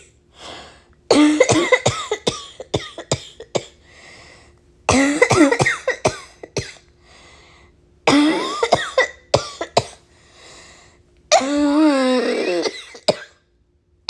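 A person coughing in four fits of rapid, repeated coughs, with quieter breaths drawn between the fits. The last fit is longer and ends in a drawn-out voiced hack. The cough is one the uploader puts down to bad allergies.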